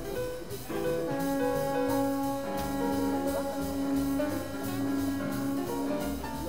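Background instrumental music, with long held notes over a stepping bass line.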